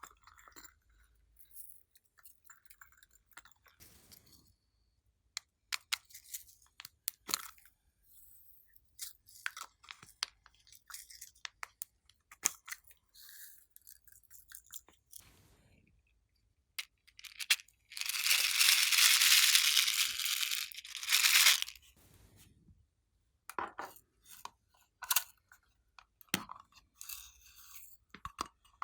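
Hands working glossy slime: scattered sticky clicks and pops, with a loud, hissing crackle lasting about three seconds past the middle.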